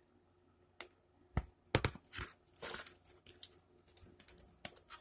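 Homemade slime being stirred and worked as the activator takes effect, making irregular short wet clicks and crackles.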